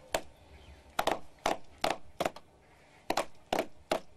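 A slow, uneven series of sharp hand claps, about eight in all with two short pauses: the traditional clapping greeting given to a chief.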